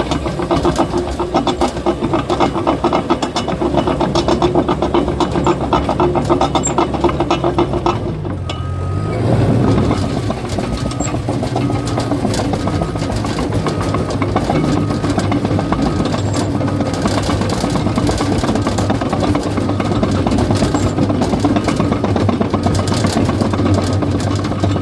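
Cat bulldozer's diesel engine running under the clatter of its steel tracks. About eight seconds in, the sound dips briefly and the engine note changes, then it runs on steadily.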